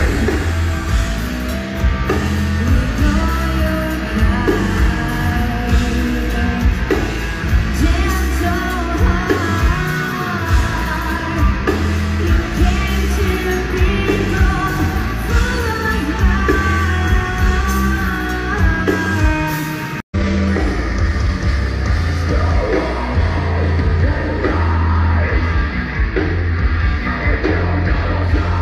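Live heavy metal band playing, with drums, bass guitar and a woman singing, heard through a phone's microphone. The sound cuts out for an instant about twenty seconds in, and the music picks up again in a duller-sounding recording.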